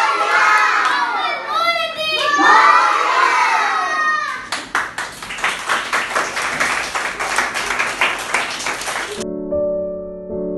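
A group of children and women singing together with hand clapping, followed by about five seconds of dense hand clapping. Soft electric piano music begins a little more than a second before the end.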